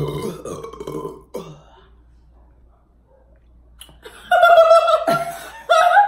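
A long, loud belch from chugging Coca-Cola, trailing off about a second in, with a short second belch just after. A few seconds later loud, high-pitched laughter breaks out.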